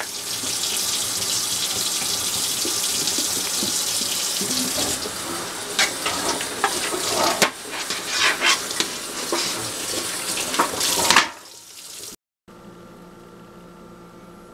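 Kitchen tap running into a sink while aluminium pie pans are washed under it, the water splashing and the pans knocking and clattering in the second half. The water stops about eleven seconds in, leaving a faint steady hum.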